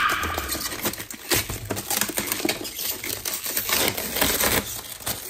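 Clear protective plastic film being peeled and pulled off a new coffee machine, crinkling and crackling irregularly with many small sharp snaps.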